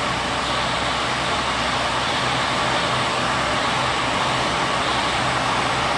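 A Perun MKS-1000 single-shaft multi-rip circular saw machine running steadily with its saw shaft spinning: a constant, even machine noise.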